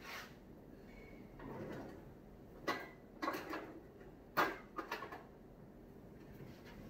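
Kitchen clatter: a few sharp knocks and clicks, spaced irregularly, as a red onion and a knife are fetched and handled at the kitchen counter.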